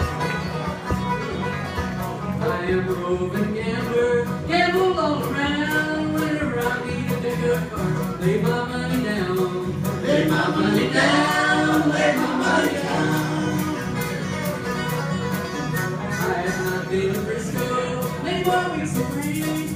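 A live acoustic band, bluegrass or country in style, with voices singing over strummed acoustic guitars and banjo and a steady rhythm.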